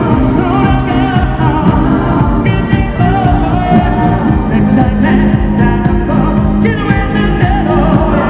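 A live ballad played loud through an arena sound system, with a man's amplified singing over the band backing track.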